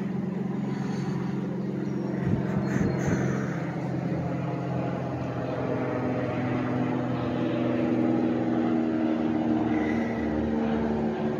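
Steady engine hum of passing road traffic over the rush of a river running at high water. The hum shifts slightly in pitch about halfway through.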